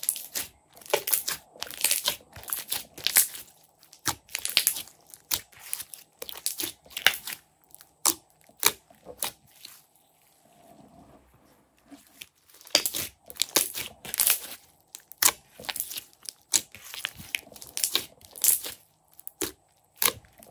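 Glossy slime being squeezed, stretched and pressed by hand, giving quick clusters of sharp, wet clicks and crackles as the slime pulls apart and presses together. It goes quieter for about two seconds near the middle.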